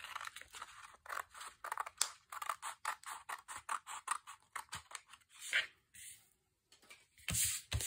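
Scissors snipping through thick scrapbook paper in a run of short, quick cuts, trimming the edge of a folded sheet square. A louder rustle of handled paper comes near the end.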